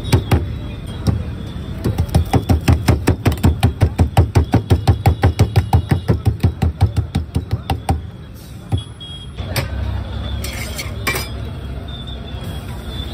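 Fast, even slapping of a palm patting out stuffed paratha dough on a plastic sheet, about five pats a second, stopping about eight seconds in. A few separate clinks and knocks follow over a steady hum of street traffic.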